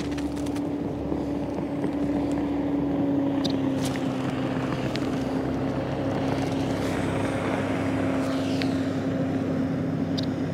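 A motor running steadily: an even hum that drops slightly in pitch about three seconds in.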